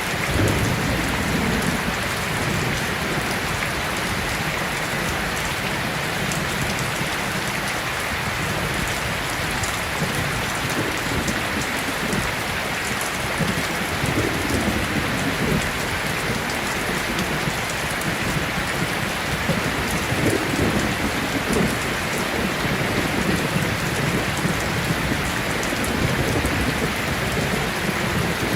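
Steady rain falling, a dense even hiss, with a few soft low rumbles rising and fading now and then.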